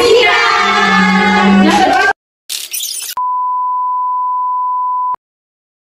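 A single steady electronic beep, one pure high tone held for about two seconds, starting about three seconds in and cutting off suddenly. Before it, voices and a brief burst of noise.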